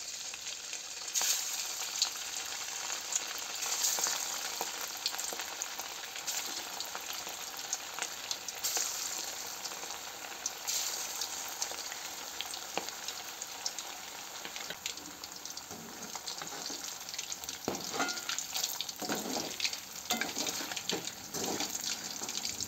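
Masala-marinated quail pieces deep-frying in hot oil in a metal kadai: a steady crackling sizzle of many fine pops. In the last few seconds a perforated metal spoon stirs the pieces, knocking and scraping against the pan.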